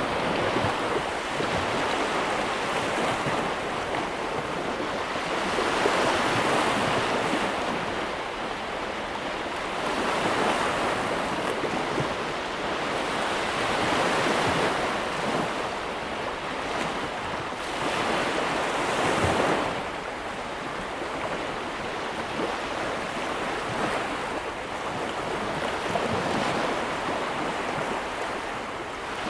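Ocean waves breaking and washing on a shore, a continuous surf wash that swells every few seconds as waves come in, with some wind.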